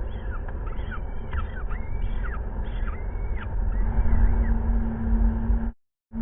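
Peregrine falcon chicks giving rapid, high-pitched begging chirps while being fed, over a steady low rumble. The chirps stop about three and a half seconds in, and the sound cuts out briefly near the end.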